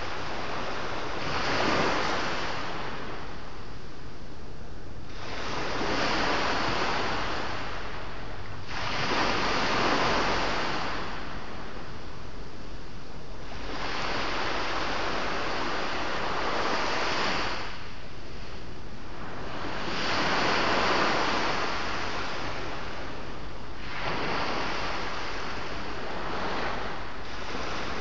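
Sea waves breaking and washing onto the shore, a broad rushing surge about every four seconds over a steady background of surf, with some wind on the microphone.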